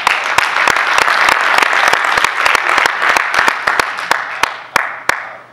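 Audience applauding loudly with many hands clapping, dying away near the end into a few last separate claps.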